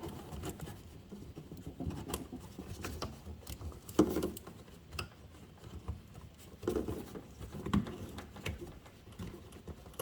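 Hands working plastic clips and parts behind a headlight in a car's engine bay: scattered small clicks, taps and scraping, with one sharper click about four seconds in.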